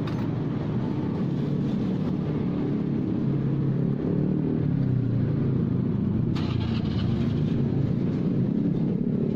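Motor vehicle engines running steadily close by, a low drone whose pitch wavers slightly, as street traffic goes past. About six seconds in a hiss joins it.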